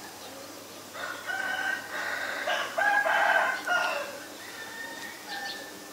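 A rooster crowing once: a call of several held notes lasting about three seconds, loudest near its middle.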